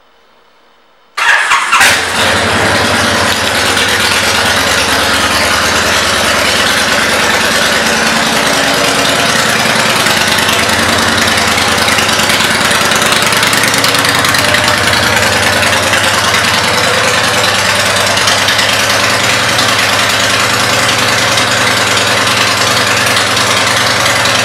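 A 2012 Honda Fury's V-twin, fitted with aftermarket pipes, starts up about a second in with a short loud burst, then idles steadily.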